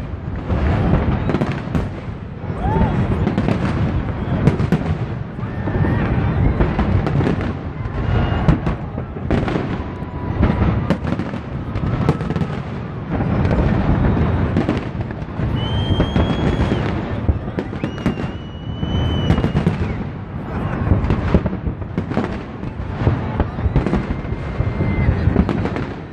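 A dense, continuous barrage of aerial fireworks shells bursting in rapid succession. The bangs swell and ease in waves every few seconds, with a few brief high whistles partway through.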